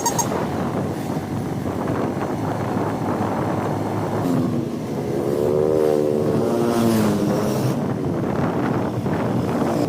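Vehicle engine and road noise with wind rushing over the microphone. From about four seconds in, an engine's pitch rises and then falls, as a vehicle speeds up and slows down.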